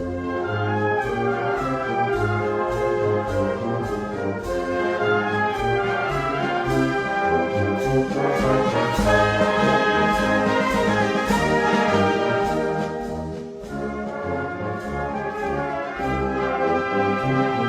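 Brass band playing Moros y Cristianos festival music, trombones and trumpets over a steady drum beat.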